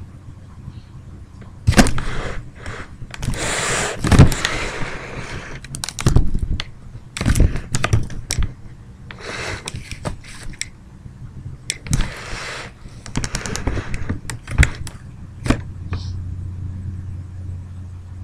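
Irregular close-up clatter of knocks, clicks, scratches and rustling, starting about two seconds in and dying away near the end: a kitten moving about in a plastic pet carrier with fleece bedding, right against the microphone. A steady low hum runs underneath.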